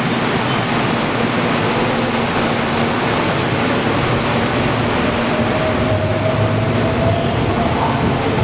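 Steady rushing rumble of an approaching subway train, with a faint whine that rises slowly in pitch from about halfway through.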